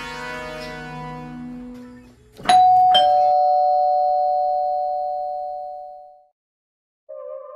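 Two-tone doorbell chime ringing ding-dong, two notes about half a second apart, each ringing on and fading away over several seconds. Before it, background music fades out, and near the end music with a wavering, eerie tone starts.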